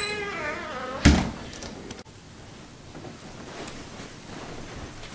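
An interior door shutting with a single firm thud about a second in, followed by low room noise.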